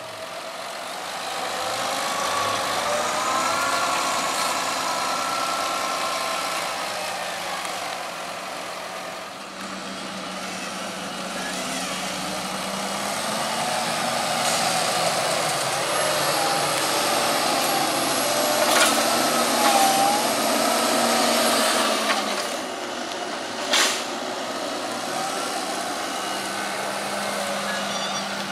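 Fendt tractor engines working on a maize silage clamp, rising and falling in pitch as the tractors push maize up the pile with a buckrake and roll it with a towed aerator. A thin high whine is heard mid-way, and there is one sharp knock late on.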